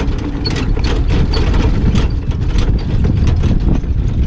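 Horse-drawn carriage rolling over the track with a steady low rumble, and the regular hoofbeats of the horse pulling it, about four a second.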